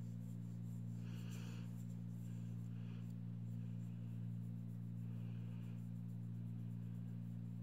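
Soft, intermittent rubbing and dabbing of a silicone makeup sponge against skin as setting powder is pressed into the face, over a steady low hum.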